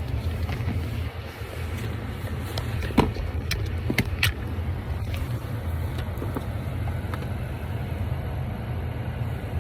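Steady low hum with a few light clicks and taps scattered through it.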